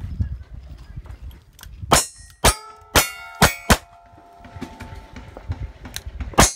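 Five revolver shots about half a second apart, each followed by the ring of the hit steel targets, then a pause of nearly three seconds and one more shot near the end.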